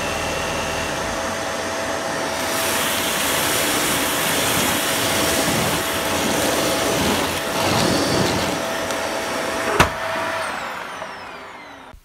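Dyson Light Ball upright vacuum cleaner running on a hard floor with a steady whine, sucking up a pile of loose debris through its Multi Floor head. A sharp click comes near the end, and the motor winds down with a falling pitch as it fades out.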